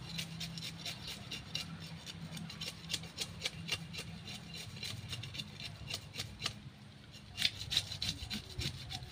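Knife blade scraping the scales off a large barracuda in quick, repeated strokes, with a short pause a bit past two-thirds of the way through.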